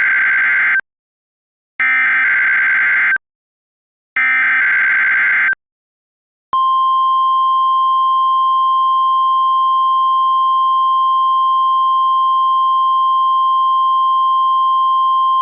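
NOAA Weather Radio test transmission. It opens with three bursts of buzzy digital SAME header data, each about a second and a half long with roughly a second's silence between them. From about six and a half seconds in comes the steady single-pitch 1050 Hz warning alarm tone, signalling the required weekly test.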